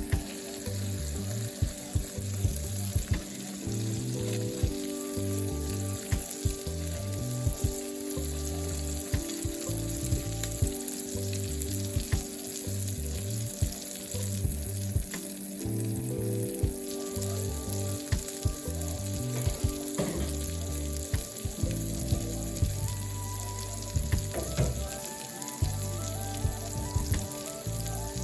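Background instrumental music with a bass line and chords changing every second or so, under a steady crackling hiss.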